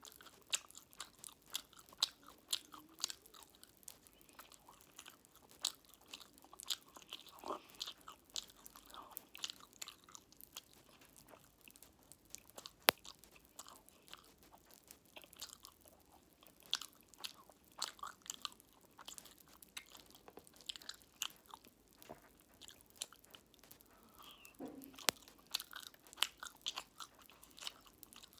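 Close-miked chewing of fruit jelly mixed with cola popping candy: wet chewing with many small, irregular crackles and clicks as the candy pops in the mouth. One sharp click about halfway through is the loudest.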